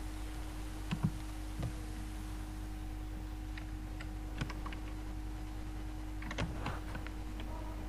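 A few scattered computer clicks from mouse and keyboard use, over a steady electrical hum and background noise.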